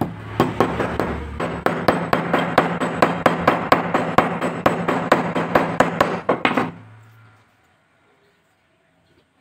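Hammer tapping a new ball bearing down onto an electric planer's shaft: a long series of quick, even metal-on-metal strikes, about four a second, that stops about seven seconds in.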